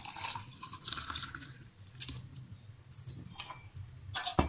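Spiced buttermilk pouring and splashing into a clay glass, with a sharp knock near the end.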